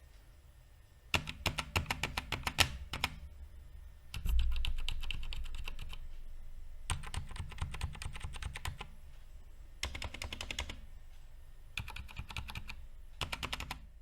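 Mechanical keyboard being typed on in quick bursts of a second or two, about six runs of rapid key clicks with short pauses between them. About four seconds in there is a dull low thump that fades slowly.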